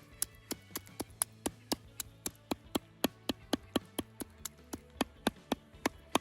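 Knife chopping roasted bell peppers into a coarse mince: quick, even strokes about four a second.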